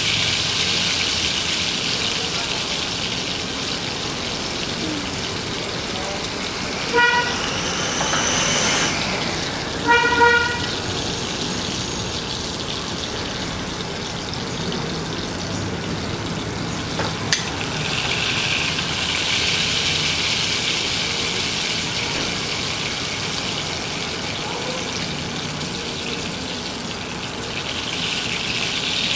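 Beef steak sizzling steadily as it fries in butter in a nonstick frying pan. Twice, about three seconds apart, a short horn-like beep sounds over the sizzle.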